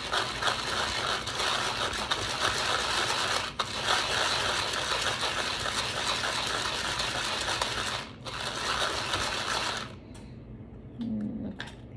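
Plastic (EVA) aroma beads rattling steadily in a container as they are mixed with blue colouring. The rattle breaks off briefly twice and stops about ten seconds in.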